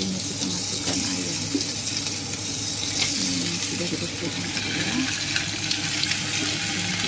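Chopped aromatics and mushrooms sizzling in oil in a wok, a steady hiss, with a few light clicks and a spatula stirring near the end.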